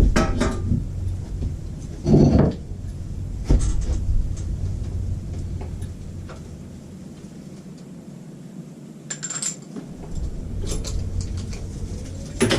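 Scattered metallic clinks and knocks, a second or several apart, of a socket and ratchet being handled while fitting motorcycle fork caps; the loudest knock comes about two seconds in.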